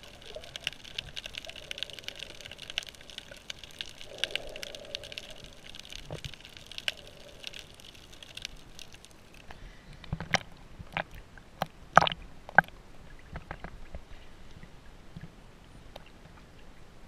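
Underwater noise picked up by a GoPro in its waterproof housing: a steady hiss crackling with many faint clicks, then several sharp, loud clicks and knocks, loudest about ten to thirteen seconds in.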